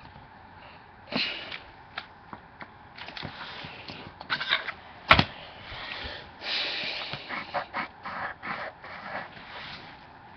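Coloring on sketch paper: irregular scratchy strokes of a pen or pencil rubbing back and forth, with scattered clicks and one sharp tap about five seconds in.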